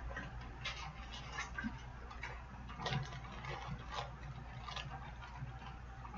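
Scattered faint clicks and light rustling of small items and packaging being handled, over a steady low hum.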